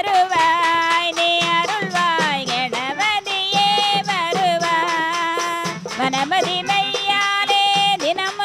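Traditional Tamil folk singing that accompanies a shadow puppet play: a voice in long, bending melodic lines over steady drum strokes.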